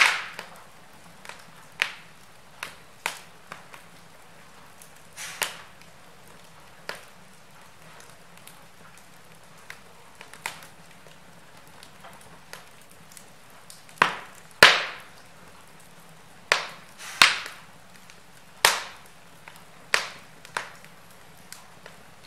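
Split logs burning in an open fireplace, crackling with scattered sharp pops. The pops are sparse through the middle and come thicker and louder in the last third, the loudest about two-thirds of the way in.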